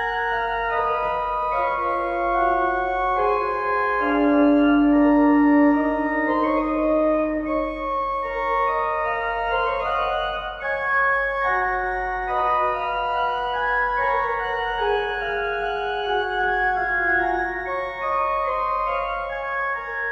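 Slow organ music: long held notes layered into chords, with the melody moving every second or two.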